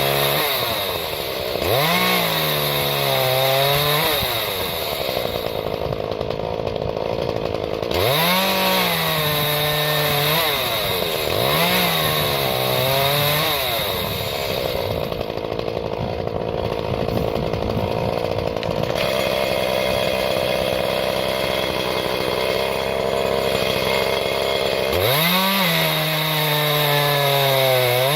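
Chainsaw held in a homemade stand, running and cutting wood. The engine revs up sharply and drops back several times as the throttle linkage opens when wood is laid against the saw.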